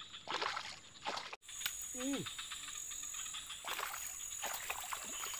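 Steady high chirring of forest insects, with a few short splashes of a hooked fish thrashing at the water's surface.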